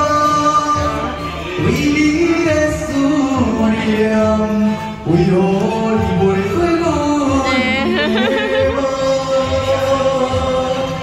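A song playing, a singer's voice carrying a slow melody in long held notes over a steady accompaniment, with a marked vibrato on a held note about eight seconds in.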